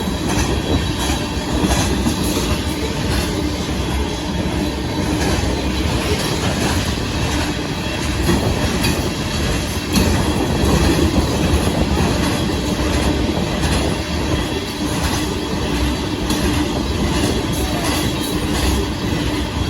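Freight cars of a Kansas City Southern de Mexico gravel train rolling steadily past, with wheels clattering on the rails and a faint wheel squeal.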